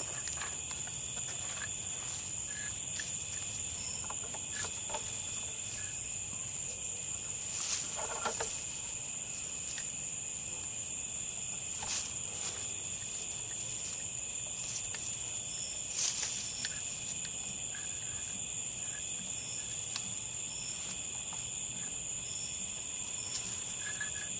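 Insects trilling in a steady, continuous high-pitched chorus, with a few faint chirps and three short, sharp clicks.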